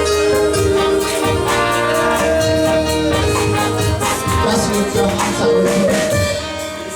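Live worship music with singing, held chords and light percussion such as tambourine; it gets a little quieter near the end.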